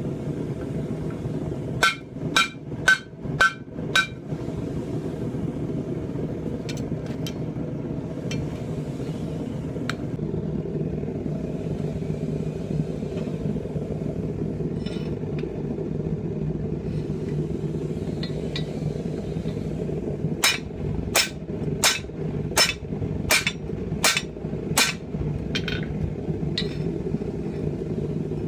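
Hammer blows on steel at an anvil: five ringing strikes about two seconds in, a few faint knocks, then a run of about nine strikes a little after the middle. A steady low drone runs underneath throughout.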